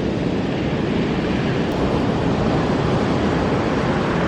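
Jeep engine running, a steady low rumble with no change, while the Jeep sits stuck in soft beach sand.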